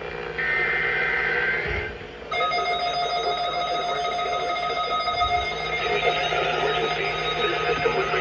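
A brief tone, then about two seconds in a steady alarm-like tone with several pitches sets in and holds, over a rough background noise.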